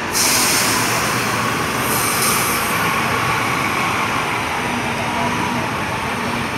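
Volvo multi-axle sleeper coach pulling away and turning past, with a loud hiss that starts suddenly at the outset and eases off as the bus moves away.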